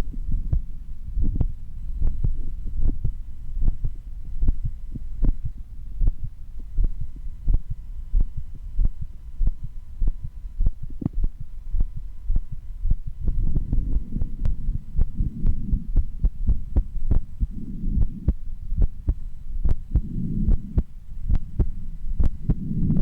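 A woman's heartbeat heard through a stethoscope: a quick, even run of low beats, with low rushing swells a few times in the second half.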